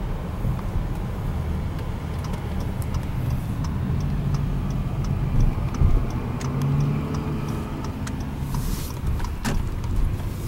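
Car running, heard from inside the cabin: steady low road and engine rumble, with light ticking about twice a second through the middle. The engine note rises briefly, and there is a single knock near the end.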